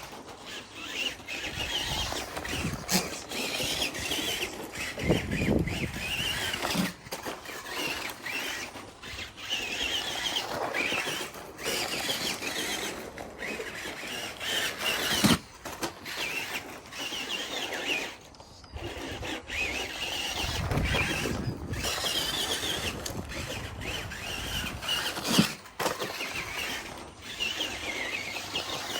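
Kyosho Raider 2WD buggy driving laps, its 23-turn Carson brushed electric motor and gears whining and rising and falling in pitch with the throttle. There are short knocks throughout and heavier rumbles about 5 seconds in and again about 21 seconds in.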